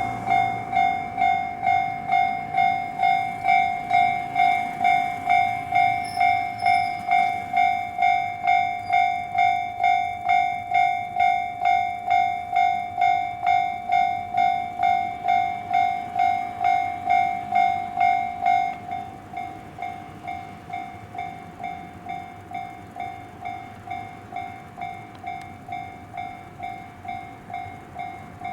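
Japanese level-crossing alarm ringing its electronic bell about twice a second. About two-thirds of the way in, the bell drops to a much lower volume and keeps ringing.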